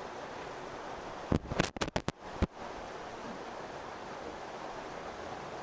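Steady background hiss, broken about a second and a half in by a quick cluster of five or six sharp knocks lasting about a second.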